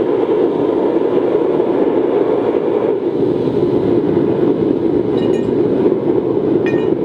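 Forced-air waste-oil burner firing into a dirt furnace, a steady loud rushing of blown air and flame. Two light metallic clinks ring out near the end, about five and nearly seven seconds in.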